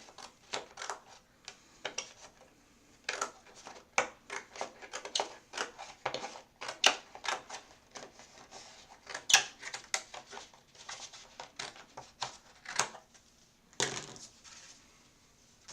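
Watercolor card stock being cut down to size and handled on a craft table: an irregular run of sharp clicks, taps and paper rustles.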